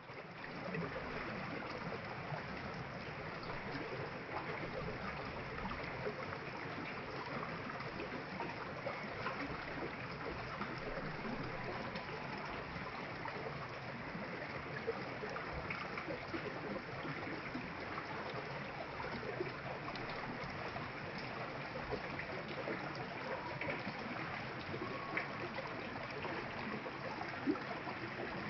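Stream water running and trickling in a steady rush, with small splashes and gurgles.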